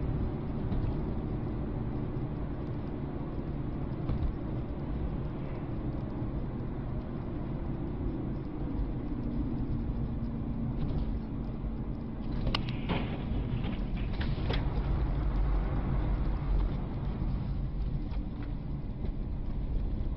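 A car driving, with steady engine and road rumble and a handful of sharp knocks about two-thirds of the way through.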